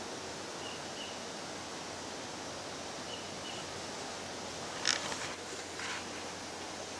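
Quiet forest ambience under a steady hiss, with a bird giving two faint pairs of short high chirps. Two brief sharper sounds come about five and six seconds in.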